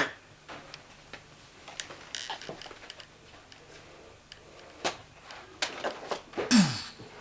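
Scuffle in a small room: scattered knocks, bumps and shuffling, with a louder rush of noise about six and a half seconds in.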